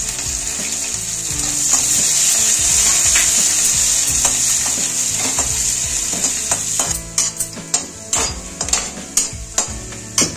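Chopped onions, green and dried red chillies and whole spices sizzling as they fry in hot oil in a metal kadhai. From about seven seconds in the sizzle thins, and a perforated metal spoon clicks and scrapes against the kadhai as the mix is stirred.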